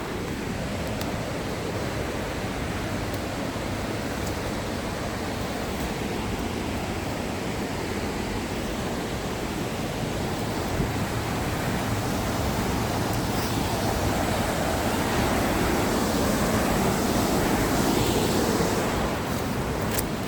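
Steady rushing of a powerful waterfall, swelling a little toward the end, with a few faint clicks near the end.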